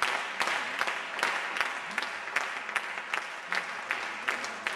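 Audience applauding, many separate hand claps standing out from the steady clapping.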